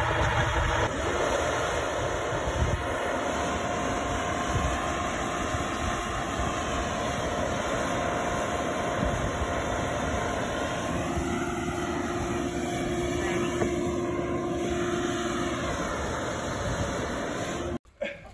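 Engine of the crane hoisting a steel beam, running steadily, with a faint steady whine over the drone. It cuts off abruptly near the end.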